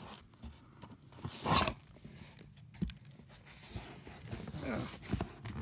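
A cardboard shipping box being opened and handled by hand. There is a loud scraping rustle about a second and a half in, then softer cardboard rustles and scrapes, and a short wavering whine-like sound near the end.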